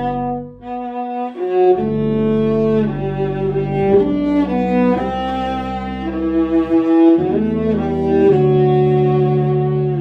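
Tuba and classical viola playing a slow hymn as a duet in long, held notes, the low part dropping out briefly about a second in.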